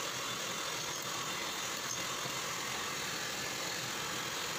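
Electric hand mixer running steadily, its beaters whisking a thin egg batter in a glass dish.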